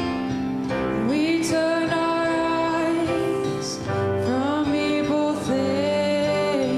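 Worship song sung with acoustic guitar accompaniment: held, sliding sung notes over steady strummed chords.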